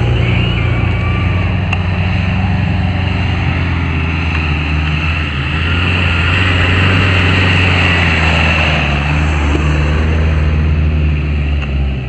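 Land Rover Defender off-road engine running steadily as the jeep drives along a dirt track, slightly louder in the middle as it comes closer.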